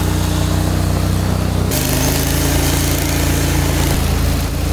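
Small engine of an amphibious ATV running as it drives through a shallow pond. Its note shifts suddenly about two seconds in.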